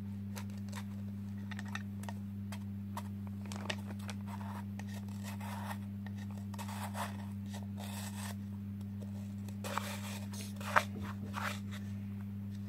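Homemade slime, chilled in the freezer, being squeezed and poked by hand: scattered small crackles and squishes in bursts, with a sharper snap near the end. A steady low electrical hum runs underneath.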